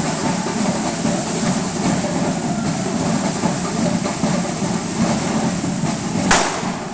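Fireworks display: a steady rumbling din of distant firework explosions, with one sharp, louder firework bang near the end.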